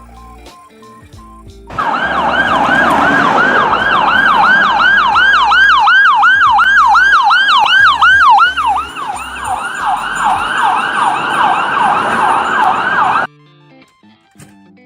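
Ambulance siren in a fast yelp, a rapid string of falling wails at about four a second. It starts about two seconds in and cuts off abruptly near the end.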